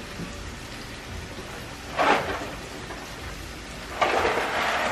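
Paper towel rustling: a short crackle about two seconds in, then steady crumpling from about four seconds in as a child wipes paint off her hands with it.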